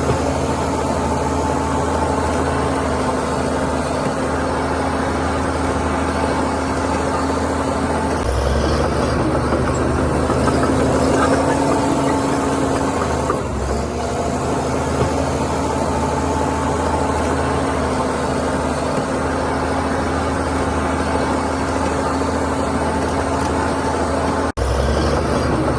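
Heavy earthmoving machinery's diesel engine running steadily with a low hum. The sound shifts abruptly about a third and about half way through, and cuts out for an instant near the end.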